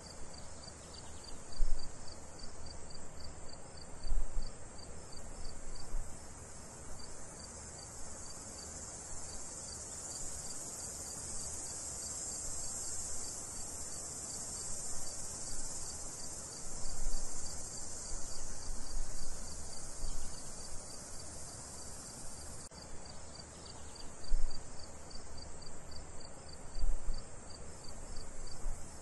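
Crickets and other insects chirping steadily: a high continuous buzz, with a quicker pulsed chirp of about four a second, and a few low thuds now and then.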